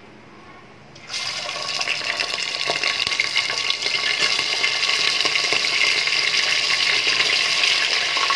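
Raw mutton pieces going into hot oil in a pressure cooker: a loud, steady sizzling that starts suddenly about a second in, with a few light clicks of the steel spoon and meat against the pot.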